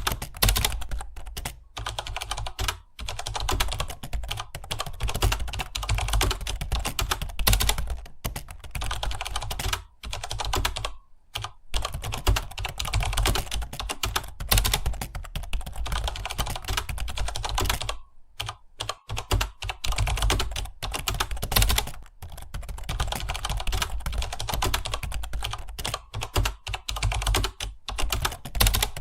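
Fast continuous typing on a computer keyboard, rapid key clicks with a few brief pauses.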